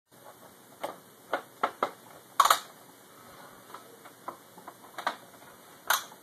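Plastic clips of an Xbox 360 case snapping into place as the case front is pressed on: a series of sharp, irregularly spaced clicks, the loudest about two and a half seconds in.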